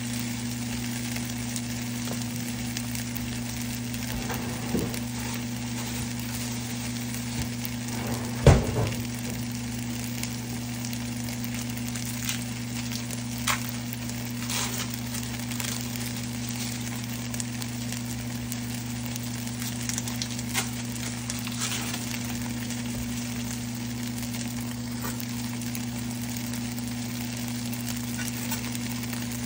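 Shredded chicken sizzling in a nonstick frying pan, with scattered small crackles and pops over a steady low hum. One sharp knock about eight seconds in.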